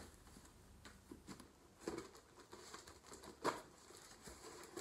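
Scissors slitting and scraping at packing tape on a cardboard box: faint scratches and small taps, with one sharper click about three and a half seconds in.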